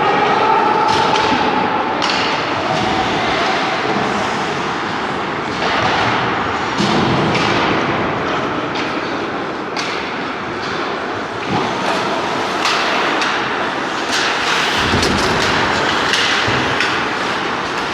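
Ice hockey play on a rink: a steady scraping hiss of skates on ice, broken by frequent sharp clacks and thumps of sticks, puck and boards.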